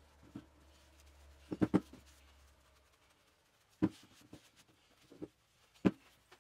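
A few knocks of a painted metal tractor wheel hub being handled and set down on a work board: a quick pair, then two single knocks about two seconds apart. Faint rag wiping between them.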